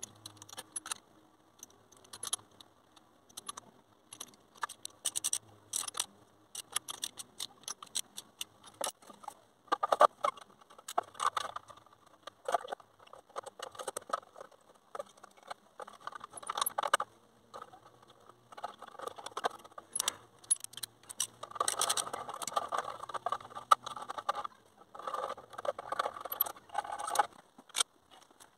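Metal clinks, rattles and scrapes from hand work on a V8 exhaust manifold and its thin sheet-metal heat shield. The clicks are irregular throughout, with longer bouts of scraping in the last third.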